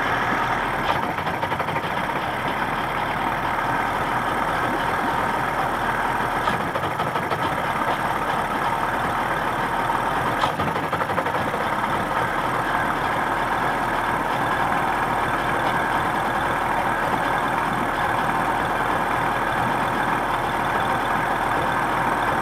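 1979 Johnson 55 two-cylinder two-stroke outboard motor idling roughly.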